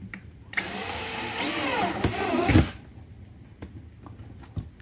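Cordless drill running for about two seconds as the bit bores a small hole through the car's plastic rear bumper, its pitch wavering as it cuts, then stopping abruptly.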